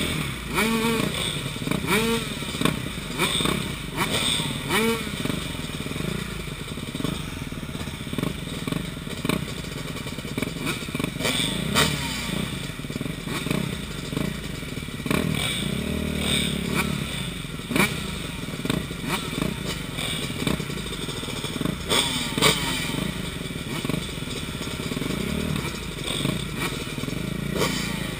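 Several dirt bike engines running at low speed, heard close up from a camera mounted on one of the bikes, with throttle blips that rise and fall in pitch every few seconds. Scattered knocks and rattles from the bike and camera mount over rough ground.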